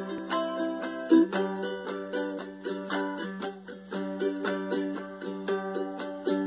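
Ukulele strummed in a steady rhythm, a few strums a second, its chords changing now and then.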